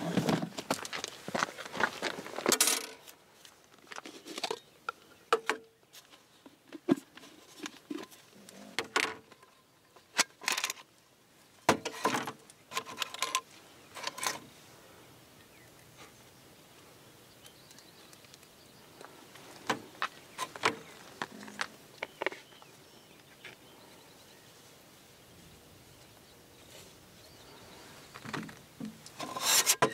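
Clinks and knocks of Jetboil stove parts (cup, lid, burner pieces, a metal spoon) being handled and set down on a metal fold-down tailgate table. The clinks come in scattered clusters, go quiet about halfway through, and resume near the end.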